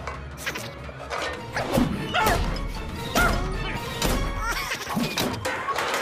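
Background music with a series of clanging crashes of metal pots and pans, about five sharp hits spread over a few seconds.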